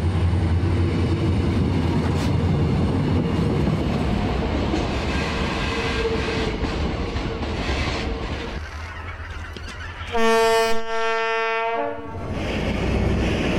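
Korail passenger train running past with a steady rumble of wheels on the rails. About ten seconds in, a train horn sounds one long blast of about two seconds, the loudest sound. Then the rumble of the train resumes.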